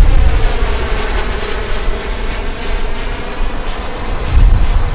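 The electric ducted fans of a large radio-controlled Boeing 777-9X model airliner run in flight with a steady high whine, over a heavy low rumble of wind on the microphone.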